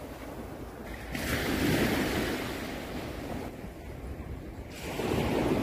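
Wind blowing on the microphone: a low rumbling noise that swells about a second in and again near the end.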